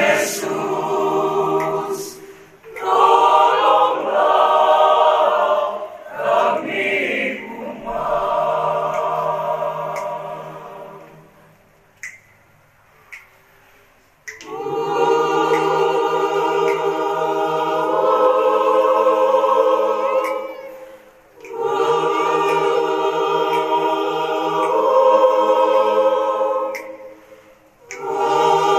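A choir singing in long held phrases, breaking off for a few seconds a little before halfway, then singing on.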